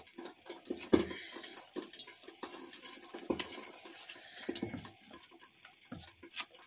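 Fingers peeling open a steamed banana-leaf parcel: irregular wet crackling and rustling of the soft, hot leaf, with the sharpest crackle about a second in.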